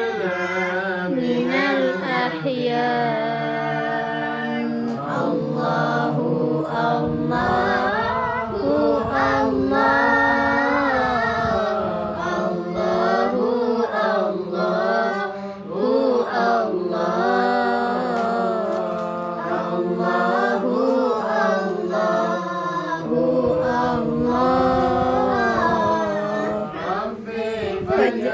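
Sholawat, an Islamic devotional song, sung in a continuous melodious vocal line with long, wavering, ornamented notes over a steady low held backing tone.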